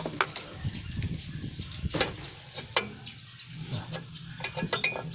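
Scattered sharp clicks and taps of hand tools and parts being handled around the brake master cylinder, with a faint low steady tone in the background.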